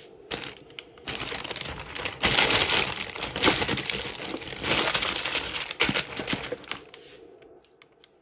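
A sheet of baking paper rustling and crinkling as it is handled: a loud, dense crackle that starts about a second in and lasts about six seconds.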